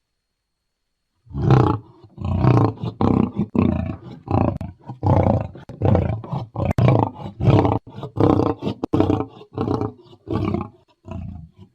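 Lion roaring: after a brief pause, a long train of short, deep grunts, about one and a half to two a second, that weaken and trail off near the end.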